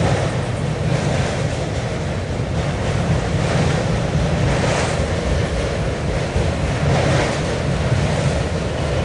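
Loaded autorack freight cars rolling past: a steady low rumble of wheels on rail, with a few brief louder surges and wind noise on the microphone.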